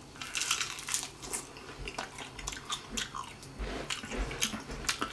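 A person chewing a mouthful of grilled chicken with crispy skin, in irregular wet smacks and crunches.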